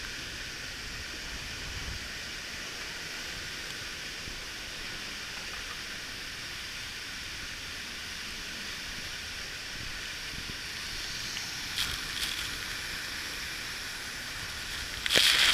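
Steady rush of a waterfall's falling water, an even hiss with no breaks. A few short crackles come about twelve seconds in, and a louder cluster of them right at the end.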